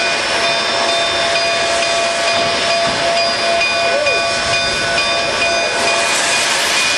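Steady hiss of steam escaping from a standing K-36 narrow-gauge steam locomotive, No. 487, with a few faint steady tones in the hiss.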